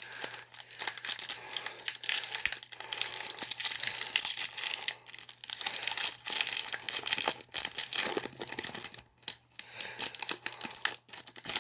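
Foil wrapper of a Pokémon trading-card booster pack being torn open and crinkled by hand: an irregular crackling rustle that comes in bursts with short pauses.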